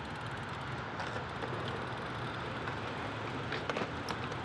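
BMX bike tyres rolling on concrete, a steady rumbling hum, with a few sharp clicks near the end.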